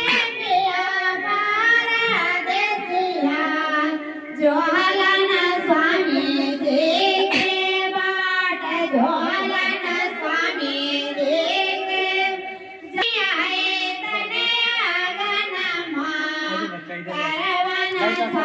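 Background music: a song carried by a high singing voice with held, gliding notes over a steady accompaniment.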